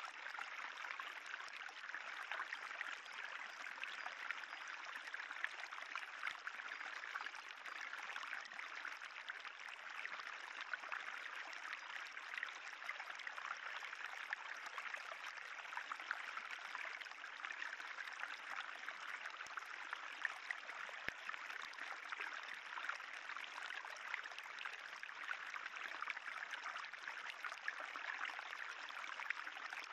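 Spring water trickling steadily along a moss-covered limestone tufa channel, a fine, even rippling with no pauses.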